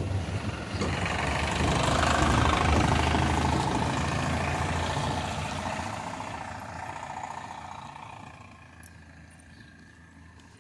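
A small motor vehicle's engine passing close by and then pulling away, loudest a couple of seconds in and fading steadily over the following five seconds.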